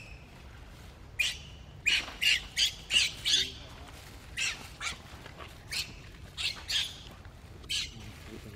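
Baby macaque giving short, high-pitched squeals in quick runs, about a dozen in all. They are distress cries while its mother drags it along the ground.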